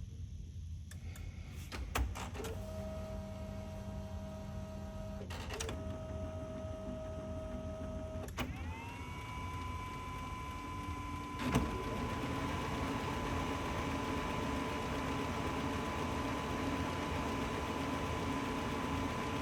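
OKI C650dn printer's mechanism cycling through its start-up after a reboot. A few clicks come first, then a motor hums steadily for several seconds. About eight seconds in a motor spins up into a steady whine, there is a clunk a few seconds later, and the printer settles into steady running.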